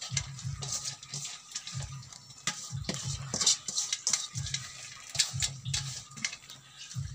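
Noodles sizzling in a metal wok over a wood fire, with irregular bursts of hissing and scraping and a few clicks as they are pressed and turned with a bowl, over low bumping rumbles from handling.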